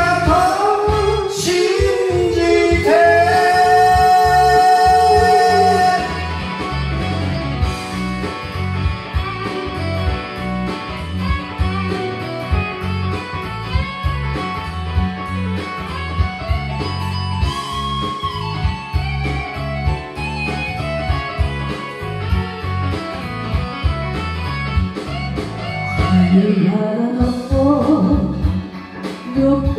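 Karaoke backing track with guitar playing through a JOYSOUND karaoke system. A sung line ends on a long held note about six seconds in, then an instrumental break follows, and singing comes back in near the end.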